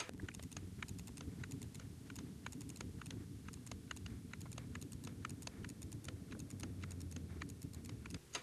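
Computer mouse clicking rapidly and irregularly, dozens of small sharp clicks as faces are selected one after another, over a faint low hum.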